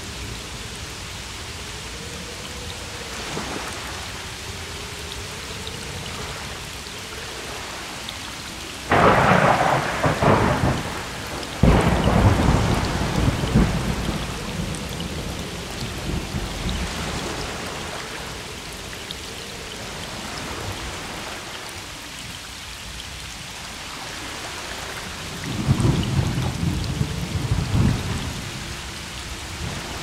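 Thunderstorm with steady rainfall. A close thunderclap cracks sharply about nine seconds in and another about two and a half seconds later, rumbling on for a few seconds, and a further roll of thunder comes near the end.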